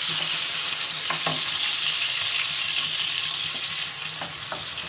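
Sliced onions sizzling in hot oil in a metal kadai, stirred with a spatula that scrapes and taps against the pan a few times.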